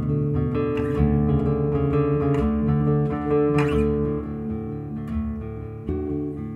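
Music: a plucked acoustic guitar playing held notes and chords that change every second or so.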